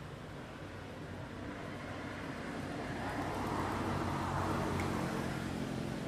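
A motor vehicle passing by: engine hum and tyre noise swelling to a peak about four seconds in, then easing slightly.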